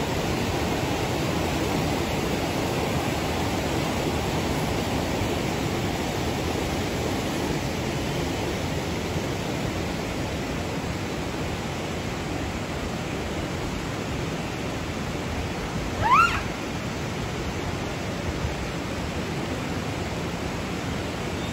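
Steady rushing background noise, with one short rising call from a Japanese macaque about sixteen seconds in, of the kind a mother gives while searching for her lost infant.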